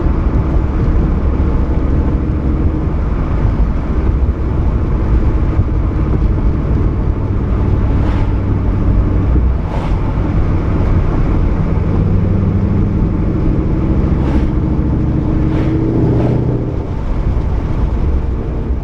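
Ford Mustang 5.0 Coyote V8 running through a Roush axle-back exhaust with an off-road X-pipe, a loud steady low drone while driving. A handful of short sharp crackles come through in the second half.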